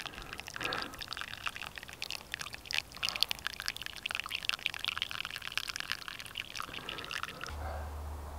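Brewed coffee dripping and trickling from a pour-over filter cone into a collapsible silicone mug, a quick, uneven patter of drips. Near the end it gives way to a steady low rumble.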